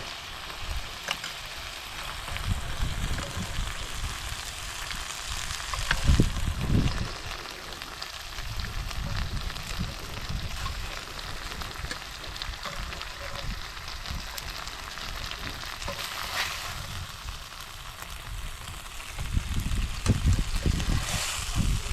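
Fish frying in oil in a pan on a portable camp cooker, a steady sizzle. There are a few low bumps about six seconds in and again near the end.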